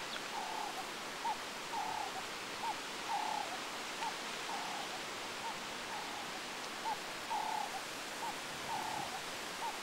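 A bird repeats a low two-part call, a short note followed by a longer one, about every second and a half over a steady outdoor hiss.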